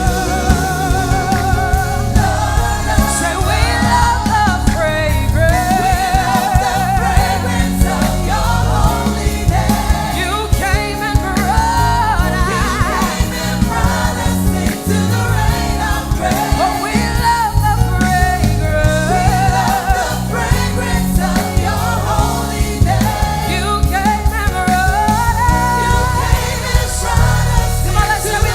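Live gospel worship song: a lead singer and choir singing over a full band with strong bass.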